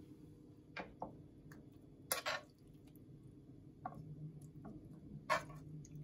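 Metal spoon clinking and scraping against a nonstick pan while scooping moist cooked filling into fried eggplant halves: a handful of short clicks, with two louder scrapes about two seconds in and near the end.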